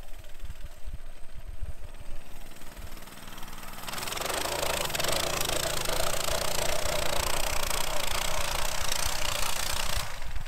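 Small single-cylinder pit bike engine running as the bike is ridden through deep snow, its low firing pulses uneven. About four seconds in the sound jumps to a louder, closer passage with a strong hiss over the engine.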